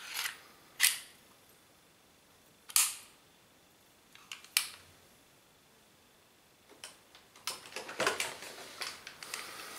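Sharp metallic clicks of an airsoft 1911 replica (Colt MK IV Series 70) being worked by hand: four separate clicks in the first five seconds. Near the end comes a busier stretch of small clicks and rustling handling noise.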